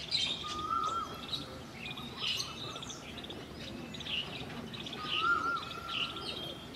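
Several birds chirping and twittering, with a clear whistled call, a held note ending in a quick up-and-down flourish, heard twice.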